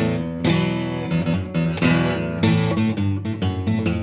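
Acoustic guitar being strummed, full chords ringing with a fresh strum about every half second, with no singing: the instrumental outro of the song.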